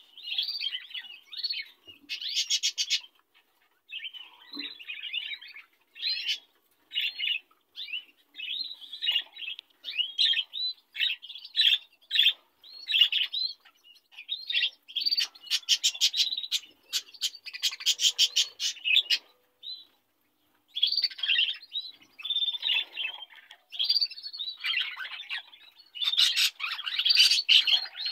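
Budgerigars chattering and warbling: a busy run of chirps mixed with stretches of rapid clicking notes, with a brief pause about two-thirds of the way through.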